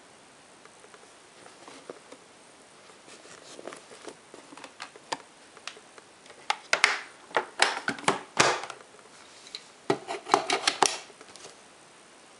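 Handling noise from the bag compartment of a Miele Silverstar S280i vacuum cleaner: the paper dust bag rustling, with a string of sharp plastic clicks and knocks. The clicks come thickest and loudest in the second half, as the compartment lid is shut.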